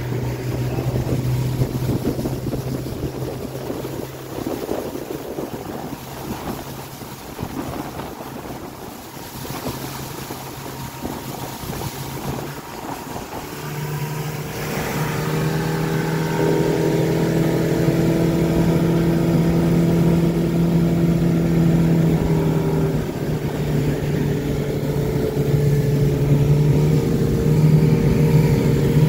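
Fishing boat's outboard motor running under way, with wind and water rushing past. The engine note fades under the wind and water for a stretch, then from about halfway through comes back louder and steady, stepping up a little soon after.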